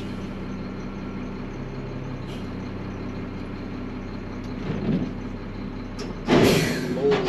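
Garbage truck engine running steadily, heard from inside the cab, with a short loud hissing burst about six seconds in.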